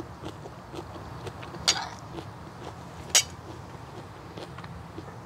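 Utensil clinking against a dish while eating: two sharp clinks about a second and a half apart, the first ringing briefly, among faint small clicks over a low steady hum.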